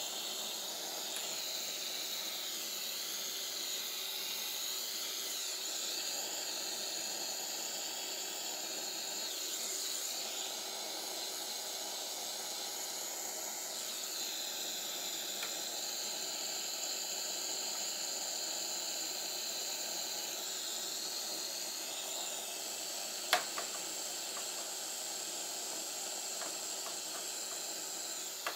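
Butane field soldering iron, its tip taken off so it blows hot gas like a torch, hissing steadily while it heats warped plastic drone prop guards to soften them. A single sharp tap sounds about three-quarters of the way through.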